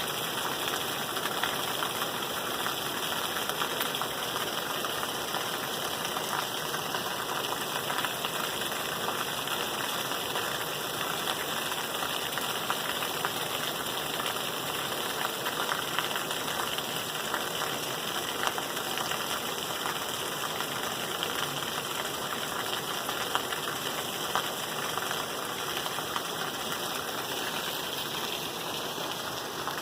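Steady rain falling: an even hiss with a dense patter of small drop ticks, holding the same level throughout.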